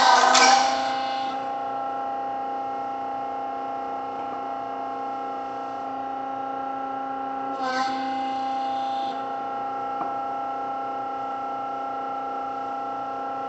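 Electric hydraulic pump of a 1981 Eitel RP25 25-ton straightening press running with a steady hum of several tones. A loud hiss dies away within the first second, and about eight seconds in the hum dips briefly with a short hiss as the ram is worked.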